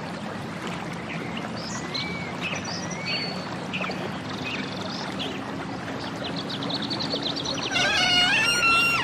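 Birds chirping and whistling over a steady sound of running water, with short calls and rising and falling whistles scattered throughout. A louder call with several stacked tones comes near the end.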